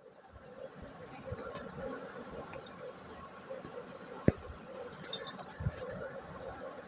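Steady room background noise with scattered small clicks, one sharp click about four seconds in and a low thump about a second and a half later.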